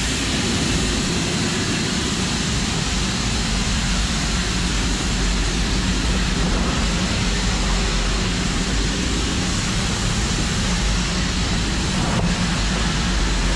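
Steady, loud hiss of steam escaping at the cylinders of an LMS Black 5 4-6-0 steam locomotive, over a low rumble.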